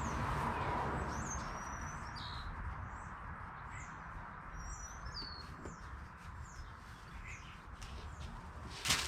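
Small birds chirping in the background, a string of short high calls that sweep up and down, over a steady low hum. Near the end comes a sudden loud crinkle.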